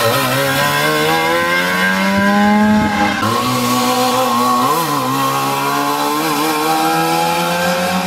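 Trabant 601 rally cars' buzzy two-stroke engines revving hard under load. The pitch climbs steadily for about three seconds, changes abruptly, then climbs again with a brief dip and pick-up partway through.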